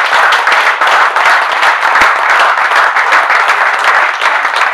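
Audience applause: many people clapping at a steady level.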